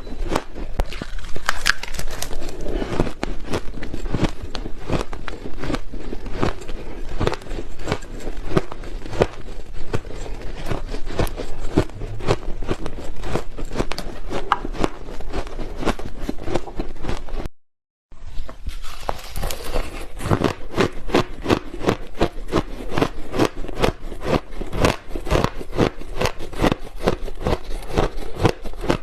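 Close-miked biting and chewing of frozen blended ice: a dense, continuous run of crisp crunches and crackles, which breaks off to silence for a moment about two-thirds of the way through, then carries on.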